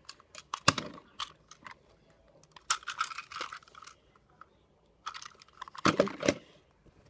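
Hard plastic toy engine and tender being handled: sharp clicks and knocks with stretches of rustling, as the tender is joined to the engine and the pair is set down among other toy trains. The loudest clicks come about a second in and again near the end.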